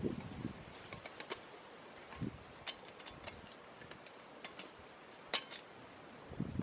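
Light clinks and clicks of camp cookware and utensils being handled, a dozen or so scattered small knocks, with a couple of soft low thumps, over faint outdoor background.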